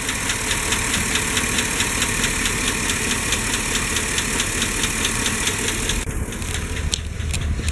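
Chevrolet 5.3-litre V8 idling with a fast, even ticking from the valvetrain that fades about six seconds in: a lifter tick, which the owner takes for failing lifters.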